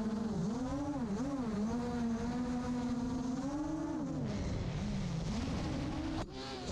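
Emax ECO 1700kv brushless motors and propellers of a 7-inch FPV quadcopter whining in flight, the pitch swinging up and down with the throttle. About four seconds in the pitch falls lower, and near the end it jumps abruptly to a higher whine.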